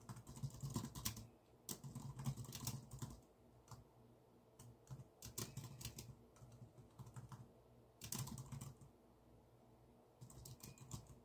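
Typing on a computer keyboard: runs of quick key clicks broken by short pauses.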